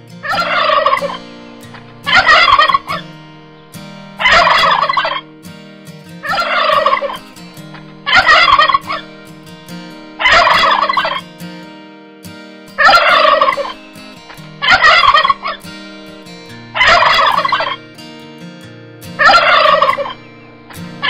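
Turkey gobbling: about ten loud gobbles, each just under a second long, repeated roughly every two seconds.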